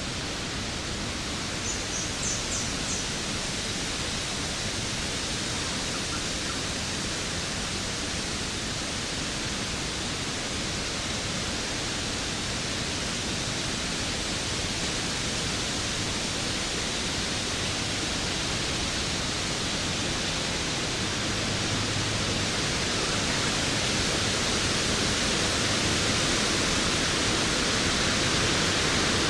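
Waterfall rushing with a steady, even roar of falling water that grows slightly louder toward the end. A quick run of faint high chirps sounds about two seconds in.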